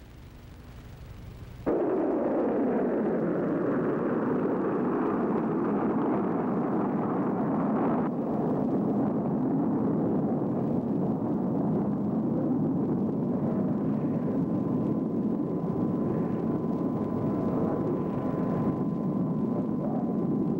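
Solid-propellant rocket motor of an Army Sergeant missile firing. A sudden roar starts about two seconds in and holds steady as the missile climbs away, with a falling sweep in its pitch over the first few seconds.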